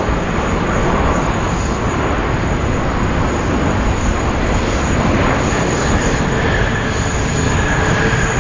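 Jet engines of a landing Boeing 787 Dreamliner: a loud, steady rushing noise, strongest in the low end, with a steady high whistle. A fainter whine comes in about five seconds in and falls slightly in pitch.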